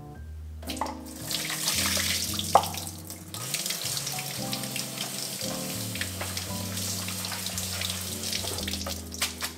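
Kitchen faucet running into a plastic colander as soaked wakame seaweed is rinsed under the stream, a steady splashing hiss that starts about a second in. One sharp knock about two and a half seconds in.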